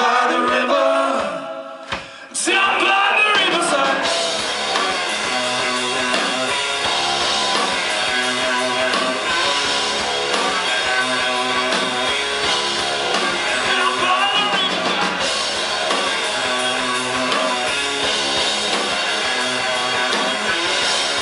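Live rock band: voices singing for the first couple of seconds, then the full band of electric guitars, bass and drum kit comes back in about two seconds in and plays on steadily.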